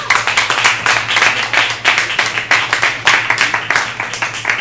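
A small audience applauding, with many quick, overlapping hand claps.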